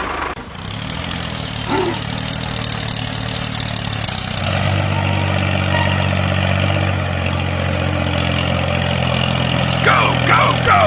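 Tractor engine running steadily, growing louder and fuller about four seconds in. A few short squeaky pitch glides come near the end.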